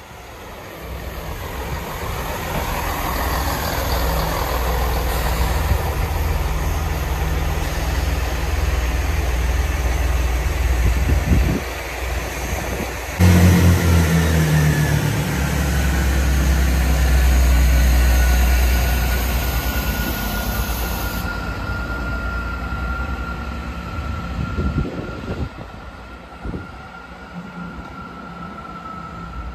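Chiltern Class 165 diesel multiple units running through a station: diesel engines rumbling with wheels on the rails. The sound jumps abruptly about 13 seconds in to a louder passing unit, followed by a slowly falling whine as it draws away.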